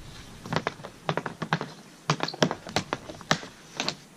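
Hockey stick blade and puck clacking on a shooting pad: a quick, irregular run of sharp clicks and taps.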